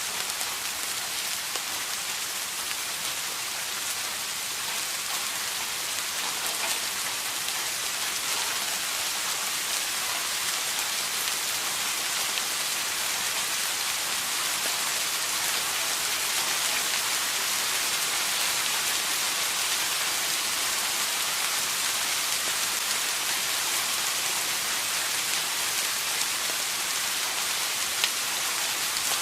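Steady rain falling, a dense even hiss with a scattering of individual drop ticks, one sharper drop about a second before the end.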